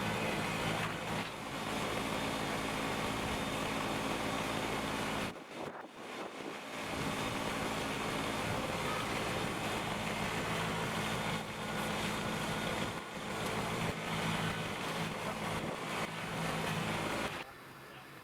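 Kubota BX sub-compact tractor's diesel engine running steadily under work. It drops out briefly about five seconds in and falls away near the end.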